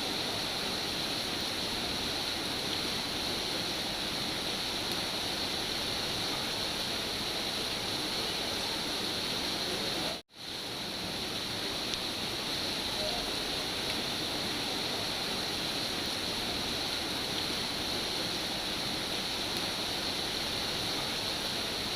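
Steady rain, a dense even hiss. About ten seconds in it cuts out for a split second and fades back in.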